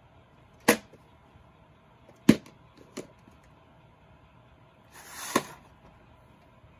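VHS tape handled in its cardboard sleeve: three sharp clicks and taps of the case in the hand in the first three seconds, then a brief sliding scrape about five seconds in as the black plastic cassette is pulled out of the sleeve, ending in a click.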